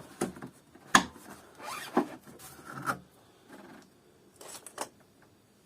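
Plastic housing of a Kärcher DS5500 vacuum cleaner being handled during disassembly: a couple of sharp clicks or knocks, then scraping and rubbing of plastic parts.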